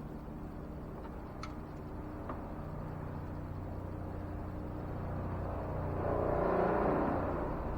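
A vehicle passing by, swelling up and fading away near the end, over a steady low hum, with two faint clicks in the first few seconds.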